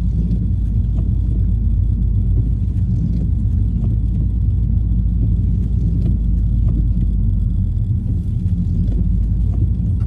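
Steady low rumble of a car driving on a wet road, heard from inside the cabin: engine and tyre noise.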